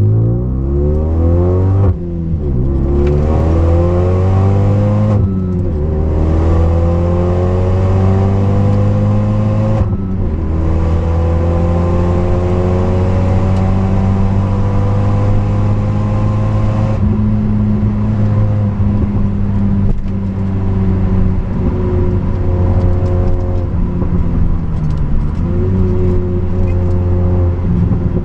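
Renault Mégane 3 RS's turbocharged 2.0-litre four-cylinder engine heard from inside the cabin, accelerating hard with rising revs and quick gear changes about two, five and ten seconds in. It holds high revs for a stretch, then the revs fall off and rise again as the car slows and is driven through corners.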